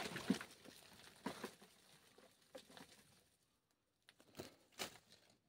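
Faint rustling and scraping of loose soil and rock, with scattered sharp ticks, the last two near the end.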